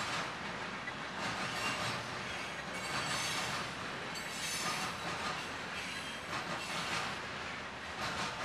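Passing Norfolk Southern freight train's steel wheels rolling on the rails, a steady rumble with irregular clacks over the rail joints and some faint high squealing from the wheels around the middle.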